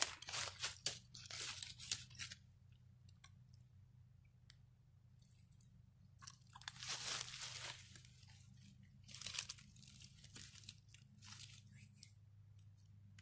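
Dry leaves and brush crunching and rustling in short bursts: a dense stretch over the first two seconds, then quiet, then three more bursts in the second half.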